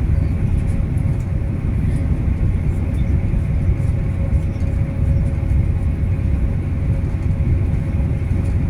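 Passenger train running steadily: a constant low rumble with a faint steady hum above it.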